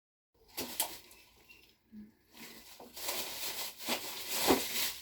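Handling noise: scattered clicks and knocks, with a rustling hiss from about halfway through as things are moved about.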